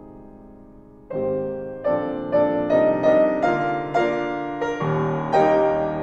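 Solo piano playing a slow, tender melody. A held chord fades away, a new chord is struck about a second in, and single notes follow at about two to three a second, with deeper notes entering near the end.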